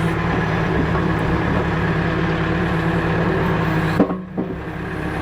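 Backhoe engine running steadily at raised throttle while the bucket is lifted. A single sharp clunk about four seconds in.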